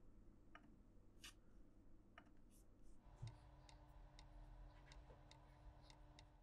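Near silence with scattered faint computer-mouse clicks, coming more often in the second half.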